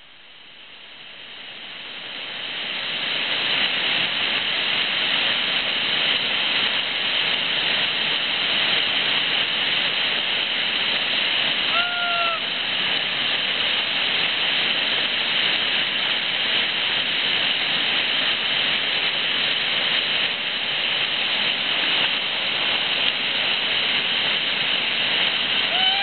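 Constant rush of whitewater pouring over the Rewind rapid on the Watauga River, fading up over the first few seconds. A brief shouted call cuts through it around the middle, and another comes right at the end.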